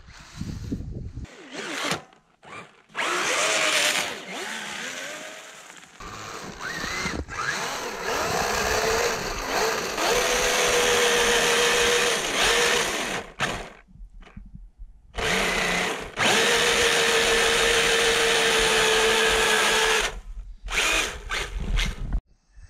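RC snowmobile's Castle brushless electric motor and gear drive whining under throttle as the long track churns through deep powder. The pitch rises as it revs up, then holds at a steady high whine. The sound cuts off abruptly several times.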